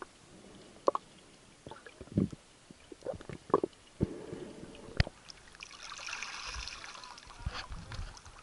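Sound picked up by a camera held underwater: scattered muffled knocks and clicks from water moving around it and from handling, with gurgles and a soft hiss around six to seven seconds in.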